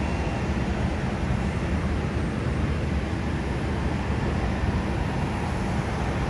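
Steady low rumble of distant jet aircraft engines, without sharp events or clear tones.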